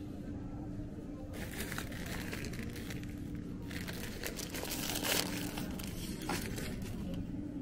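Plastic wrapper of a four-pack of instant noodles crinkling as it is picked up and handled, in two rustling stretches, the second louder, with a short click near the end.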